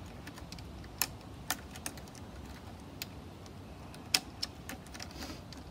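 Irregular light clicks, about six, of a cable connector being fitted to the receiver end of a Geonics EM-31 MK2 conductivity meter's boom; the loudest comes about four seconds in.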